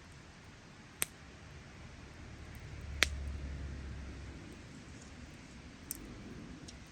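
Wood campfire crackling, with three sharp pops, the middle one loudest, and a low rumble that swells briefly around it.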